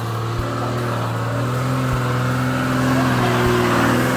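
Toyota Land Cruiser Troopcarrier's 1HZ diesel six pulling under load off-road, its pitch and loudness climbing a little near the end. A soft low knock comes about every second and a half.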